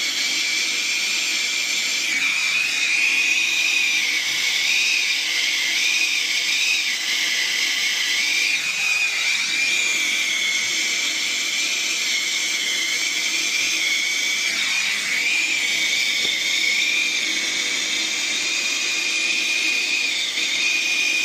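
Handheld soldering torch flame hissing steadily with a whistling tone while it heats a copper pipe joint on a zone valve for sweating, wavering briefly a few times as the flame is moved.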